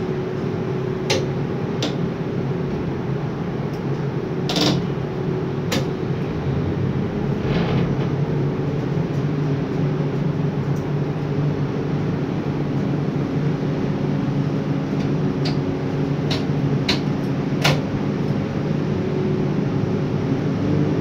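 Steady machinery hum of a hot metal crane heard from inside the operator's cabin, with several steady tones. Scattered sharp clicks and knocks come through it, a few early and a quick cluster about three-quarters of the way in.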